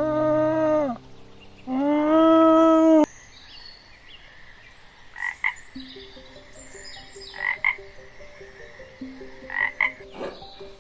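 Animal calls: two long, loud pitched calls in the first three seconds, then quieter short calls in pairs about every two seconds.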